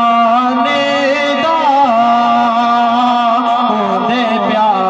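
A man singing a naat in Punjabi through a microphone and loudspeaker, drawing out a long wavering phrase over a steady held low note.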